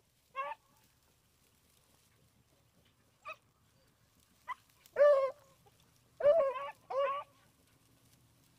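Beagles on a rabbit hunt barking in short, separate calls. A few single barks are spread out, then three louder ones come close together a bit past halfway.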